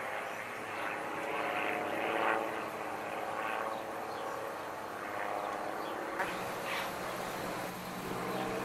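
Two single-engine propeller planes flying overhead in formation, their engines giving a steady drone.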